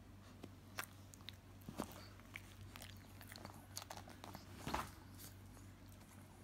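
A small dog chewing banana: faint, irregular wet clicks and smacks of its mouth, the loudest about two-thirds of the way through.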